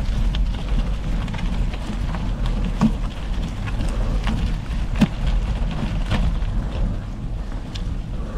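A gravel bike riding over a rough track: the tyres crunch and crackle on loose stones and the bike rattles, with a few sharper knocks, the biggest about five seconds in. Under it a steady low rumble of wind on the action-camera microphone.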